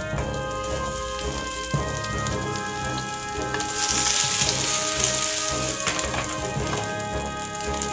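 Potato-starch-coated eggplant pieces sizzling in hot oil in a frying pan. The sizzle gets louder for a couple of seconds about four seconds in.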